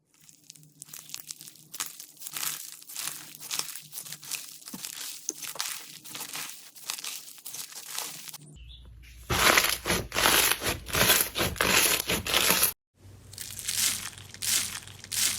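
Crunchy slime being squeezed and worked, giving a stream of fine crackles and crunches. About 9 s in it becomes a louder, denser crunching that breaks off abruptly, then lighter crackling follows.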